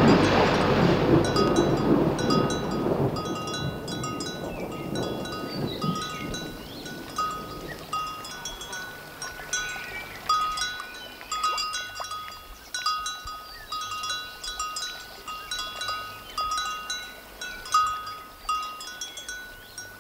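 A rainstorm with thunder dies away over the first six or seven seconds. Light, bell-like chimes then ring at a few fixed pitches, a few times a second.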